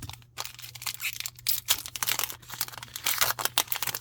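Foil trading-card booster pack crinkling and tearing as it is opened: a continuous run of irregular crackly rustles.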